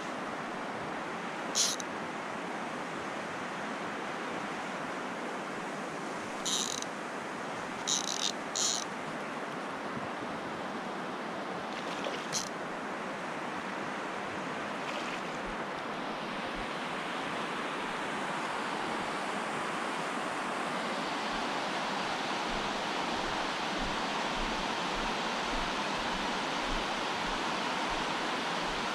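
Water rushing steadily down a concrete spillway, growing a little louder in the second half. Over it come a few short, high-pitched zips from the spinning reel while a hooked fish is played, in the first half only.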